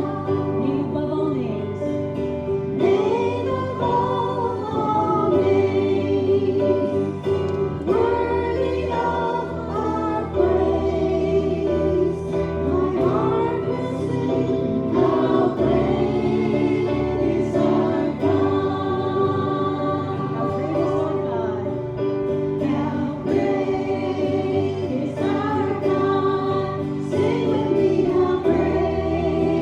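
A choir or group of voices singing a gospel hymn together, over a steady sustained accompaniment.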